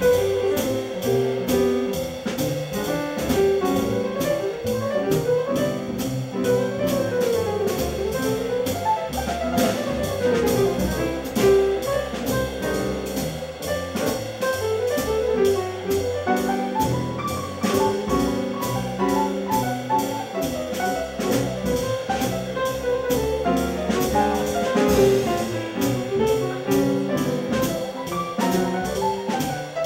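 Live small-group jazz: piano and upright double bass over drums keeping a steady cymbal beat.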